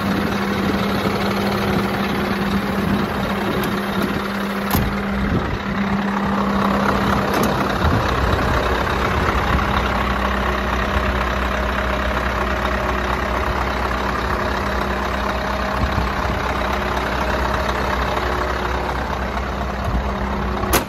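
Scania R560's 16-litre V8 diesel idling steadily. A deeper low rumble comes in from about eight seconds in.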